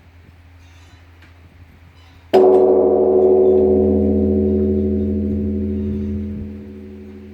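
Korean Buddhist temple bell struck once about two seconds in, then ringing on with several steady tones over a deep hum, slowly fading.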